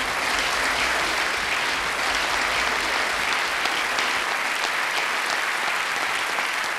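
Audience applauding steadily, a dense patter of many hands clapping, easing off slightly near the end.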